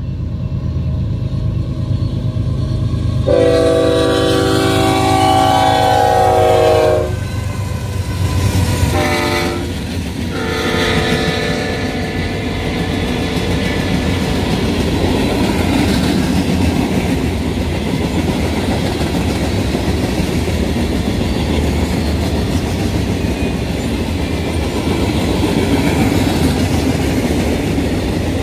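Union Pacific freight train: the diesel locomotives' multi-note horn sounds a long blast, a short one and another longer one in the first dozen seconds. Then the locomotives pass, and the freight cars roll by with a steady rumble and the clickety-clack of wheels over the rail joints.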